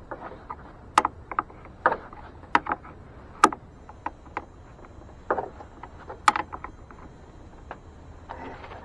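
Small wrench clicking and clinking on a car battery terminal nut as it is tightened: about a dozen sharp, irregular metal clicks.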